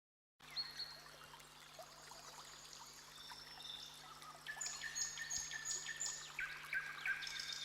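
Faint running water of a small stream, with a songbird singing; from about four seconds in it repeats short high whistled notes in a quick even series.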